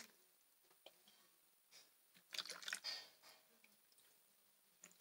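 Near silence, with a faint splash of a small amount of water poured into a plastic basin of water about two and a half seconds in, lasting under a second.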